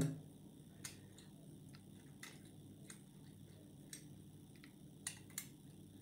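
A few faint, scattered metallic clicks as a piano-wire pick works the Butters-system levers inside a brass Union lever padlock one at a time.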